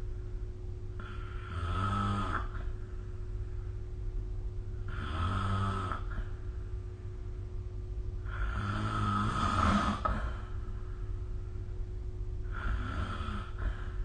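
A person snoring in their sleep: four snores, one every three to four seconds, the third the longest and loudest, over a steady low hum.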